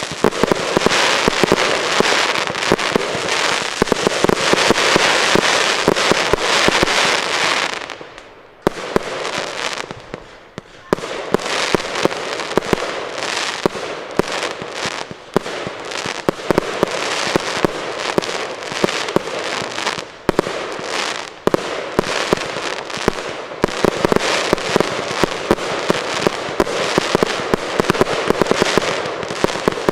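Aerial fireworks bursting in a dense barrage, a continuous mass of rapid sharp pops and crackles. It thins out briefly about eight seconds in, then builds back to a steady barrage.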